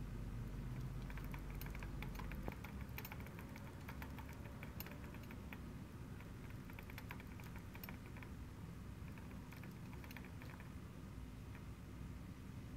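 Hamster running inside a plastic exercise ball on a wire stand: fast, irregular light clicking as the ball turns on the stand and claws tap the plastic, thinning out near the end. A low rumble underlies the first couple of seconds.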